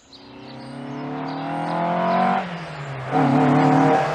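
Ford Lotus Cortina Mk1's 1558 cc twin-cam four-cylinder engine accelerating, its pitch climbing, then dipping at a gear change about two and a half seconds in before pulling again, louder, as the car approaches.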